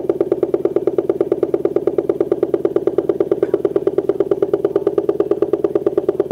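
Auxetophone compressed-air amplifier sounding through its horn, its valve driven by an electrodynamic shaker: a loud, steady buzzing tone that pulses rapidly and evenly, about ten pulses a second.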